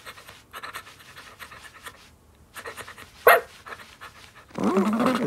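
Cartoon puppy panting in quick short breaths, with one short sharp sound just after three seconds in. Near the end comes a louder, wavering whine.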